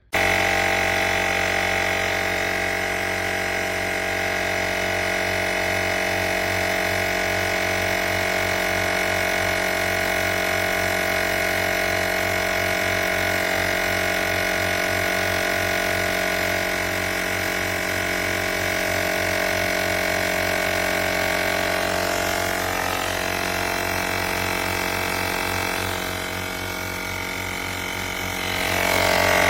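Portable jump starter's built-in air compressor switching on abruptly and running steadily: a motor whine over a fast piston chugging. It dips slightly a few seconds before the end, then picks back up.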